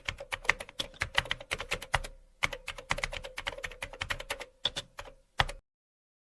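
A rapid, irregular run of sharp clicks like typing on a keyboard, several a second, that cuts off suddenly about five and a half seconds in.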